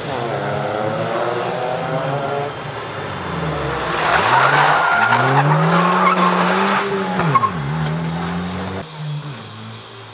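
Ford Puma 1.7's four-cylinder engine revving up and falling back repeatedly as the car is driven hard through a slalom. The tyres squeal through a tight turn from about four to seven seconds in, the loudest part. Near the end the engine is quieter and farther off.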